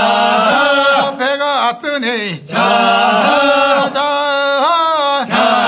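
Men's voices chanting a Korean fishermen's boat-launching work song, sung while pushing the boat off with poles, in long held phrases broken by short pauses.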